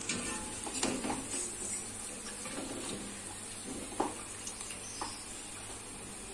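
Hot frying oil sizzling and dripping in a pot as fried onions are lifted out with a strainer. A few light clicks sound under a second in, about 4 s in and about 5 s in.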